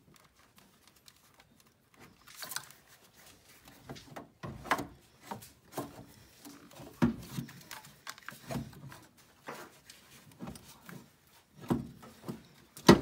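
Replacement alternator knocking and scraping against brackets and hoses as it is worked by hand down into its mount in a car's engine bay: irregular hard clunks a second or two apart, the loudest a sharp knock near the end.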